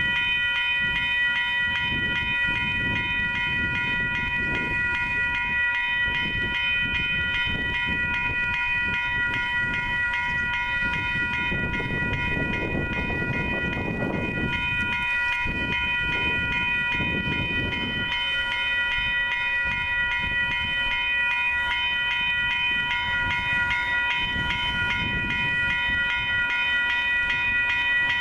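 Railroad grade-crossing warning bell ringing continuously in a fast, even beat while the gates are down, signalling an approaching train. A low rumble rises and falls underneath, swelling about halfway through.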